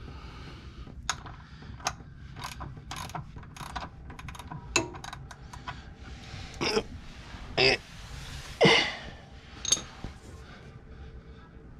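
Ratchet and 16 mm socket clicking in short, irregular strokes as a tight oil drain plug is worked loose. About two-thirds of the way through come a few louder, longer strained sounds.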